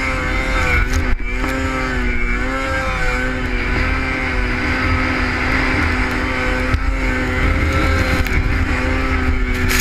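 Arctic Cat snowmobile engine running at high, steady revs under throttle, with brief dips in pitch about one and three seconds in, over a low rumble.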